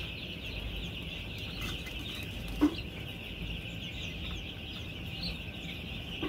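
A large flock of young chicks peeping continuously, a dense chorus of high chirps. A single sharp knock sounds about two and a half seconds in.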